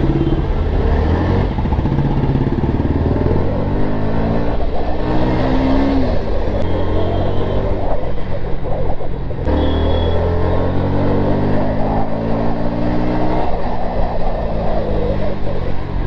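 Bajaj Pulsar NS160's single-cylinder engine revving: the pitch climbs steadily over a couple of seconds and then drops back, twice, over a steady low running note.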